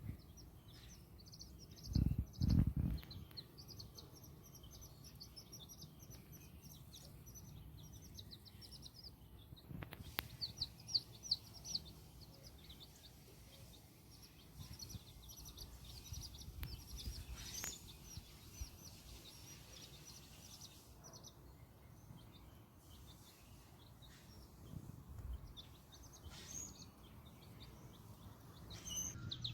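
Young Black Copper Marans chickens peeping, in long runs of short, high chirps. A couple of low thumps come about two seconds in.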